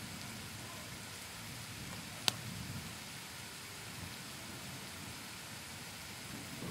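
Steady rain falling on paving and shrubs, an even hiss, with one sharp tick a little over two seconds in.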